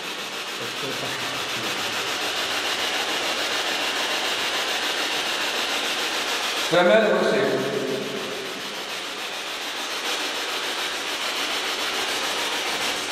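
Steady hissing noise. About seven seconds in, a short voice-like sound falls in pitch.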